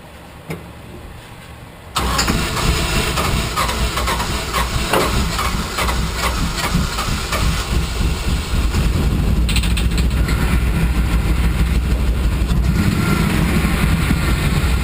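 A GM 6.0 L LQ4 V8 starts about two seconds in and runs roughly, with a lot of mechanical noise. The owner takes the noise for a spun bearing, since there is metal in the oil.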